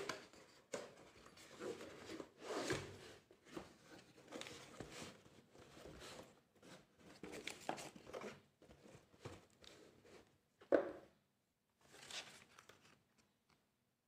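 Cardboard keyboard box being opened by hand: irregular sliding, scraping and rustling of cardboard and paper, with a sharp knock at the start and another about three-quarters through.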